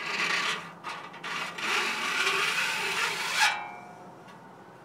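A flat file drawn lengthwise across the tops of a hand rip saw's teeth, jointing them level: a short rasping stroke, then a longer one of about two seconds that ends in a brief ringing tone.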